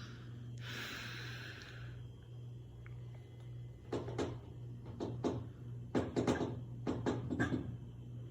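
Hampton Bay Landmark III Plus ceiling fan motor humming steadily, with a short hiss about a second in and a run of sharp clicks and knocks in the second half.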